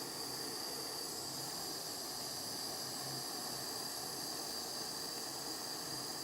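Gas soldering torch flame hissing steadily as it warms a silver ring from a distance to drive off moisture before the solder flows, with a steady high thin tone above the hiss.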